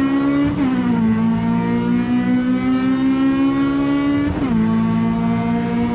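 Honda Civic Type R EP3's K20 two-litre four-cylinder engine accelerating hard at high revs. Its pitch climbs steadily through each gear, with quick upshifts about half a second in and again near the end, where the pitch drops and then starts climbing again.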